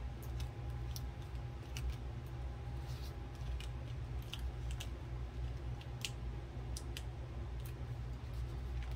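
Scattered light clicks and rustles of card stock and foam adhesive dimensionals being handled, over a steady low hum.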